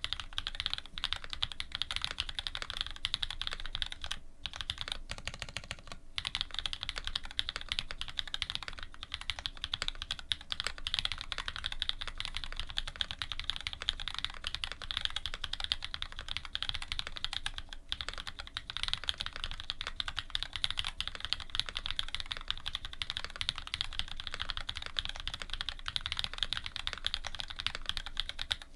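Rapid, continuous typing on a custom Dolphin linger re mechanical keyboard. It has lubed Cherry Black switches fitted with Cream stems, an aluminium plate and GMK keycaps, and gives a dense stream of key clacks. The typing pauses briefly about four, six and eighteen seconds in.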